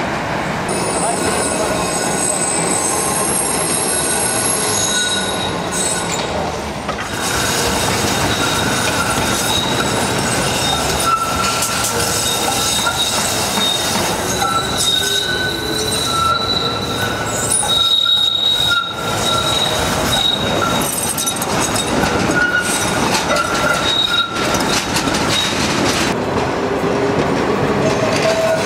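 Tram wheels squealing on tight curves of street track, over the steady rumble of the trams rolling on the rails. A high squeal comes in the first few seconds, and a longer, lower squeal that shifts in pitch runs through the middle.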